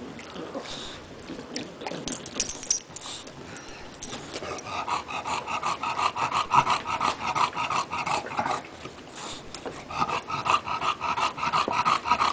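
English bulldog panting hard, a fast, rhythmic, raspy in-and-out breathing that starts about four seconds in, breaks off briefly near nine seconds and resumes. Before it, softer scattered sounds of the dog chewing and tugging at a plush toy.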